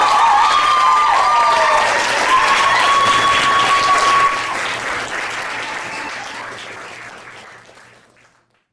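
Audience applauding and cheering with high gliding whoops and one held call, then the applause fades out to silence over the last few seconds.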